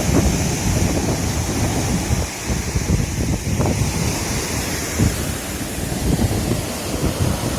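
Sea surf washing on the shore, with wind buffeting the microphone in irregular gusts.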